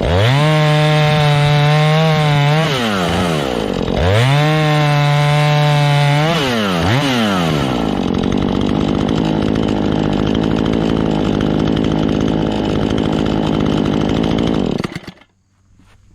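Husqvarna 440e two-stroke chainsaw revved to full throttle twice, each time dropping back, then held at full throttle under load cutting firewood for about seven seconds. The sound cuts off abruptly near the end.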